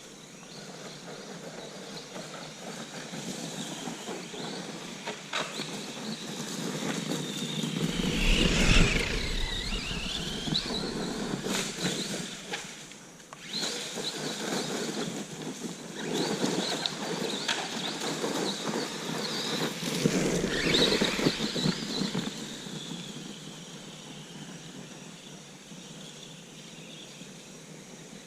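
Arrma Granite BLX 4x4 RC truck's brushless electric motor whining as it speeds up and slows down, its pitch rising and falling, over tyre and drivetrain noise. It is loudest in two stretches, about 8 seconds in and again about 20 seconds in.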